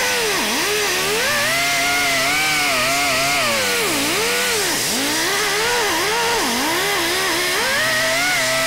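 Pneumatic die grinder running hard, a steady whine whose pitch sags and recovers again and again as the tool bears on rust inside a cast-iron trunk guide bore.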